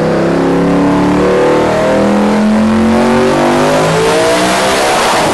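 Twin-turbocharged Ford GT 5.4-litre V8 making a pull on a chassis dynamometer, the revs climbing steadily under load.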